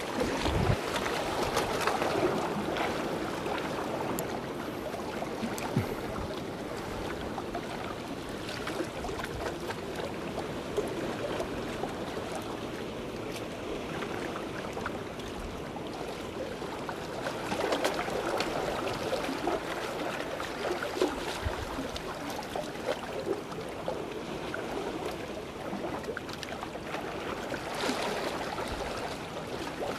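Seawater lapping and sloshing against concrete breakwater blocks, a steady wash with small gurgles and crackles that swells slightly a few times.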